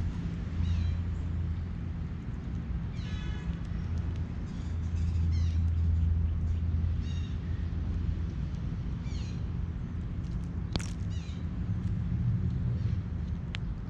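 Wild songbirds calling, with scattered short chirps and quick falling trills, over a steady low hum. There is one sharp click about three-quarters of the way through.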